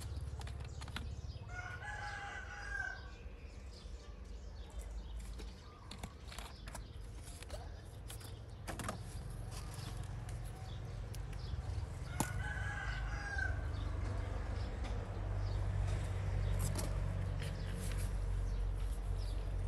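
A rooster crowing twice, once about two seconds in and again about twelve seconds in, each crow about a second long. Scattered light clicks run through the rest.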